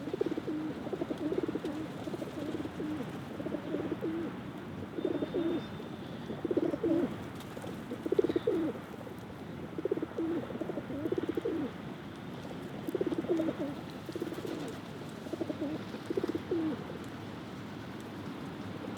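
Pigeons cooing: low throaty coos come every second or so, with several birds overlapping.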